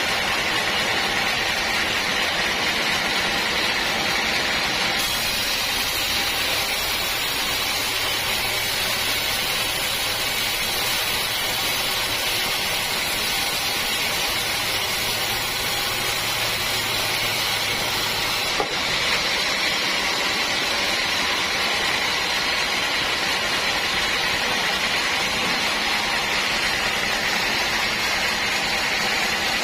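Sawmill saw running steadily, a continuous mechanical noise with a faint hum. Its sound shifts about five seconds in and shifts back a little past the middle, with a brief click at that point.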